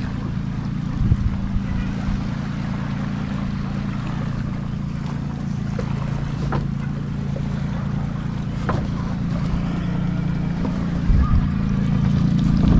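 A small boat's engine idling steadily with a low, even hum, with wind and water noise; the engine grows louder near the end.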